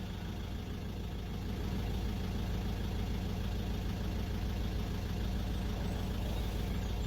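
Renault Clio Mk3 1.5 dCi four-cylinder diesel engine idling steadily, its low hum rising slightly in level about a second and a half in.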